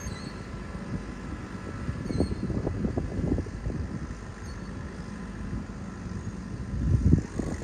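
New Holland 7740 tractor engine running steadily under load as it pulls a four-furrow plough, heard from a distance, with an uneven low rumble that swells about two seconds in and again near the end.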